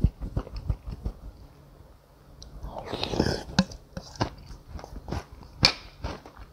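Close-miked eating of noodles in soup with chopsticks: many small chewing and chopstick clicks, a long slurp of noodles and broth about three seconds in, and another sharp slurp or click near the end.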